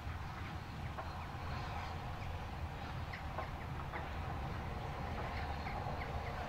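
Distant steam train rolling past: a steady low rumble. Short high chirps come over it at irregular intervals.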